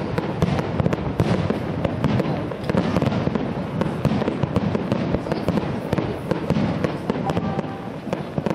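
Aerial fireworks display: shells bursting overhead in quick succession, a dense, unbroken run of bangs and crackle with a heavy low rumble beneath.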